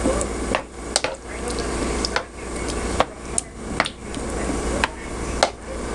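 A spatula stirring steak strips through simmering tomato sauce in an electric skillet: a steady bubbling hiss, with irregular knocks and scrapes as the spatula strikes the pan.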